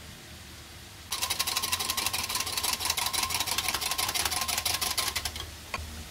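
A rapid, even mechanical clicking with a steady whirring tone under it, lasting about four seconds, then one more single click.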